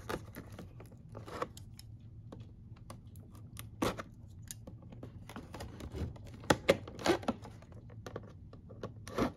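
Cardboard and plastic toy packaging being handled and cut open with scissors: light rustling with a handful of sharp snaps and clicks, the sharpest about four seconds in, twice more between six and seven seconds, and once near the end.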